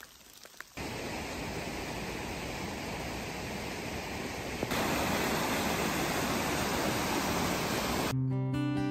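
Steady rushing water that steps up louder about halfway, as a fast whitewater creek running over rocks. Acoustic guitar music starts near the end.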